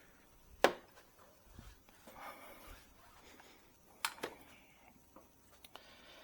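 Sharp plastic clicks and snaps as push-pin body clips are pried out of a truck's front trim: one loud snap under a second in and two quicker clicks around four seconds in, with soft rubbing of hands and plastic between them.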